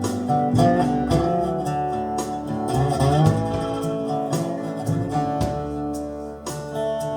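Music: an instrumental break in a song, a guitar playing a lead line with bent notes over a bass line and a steady drum beat.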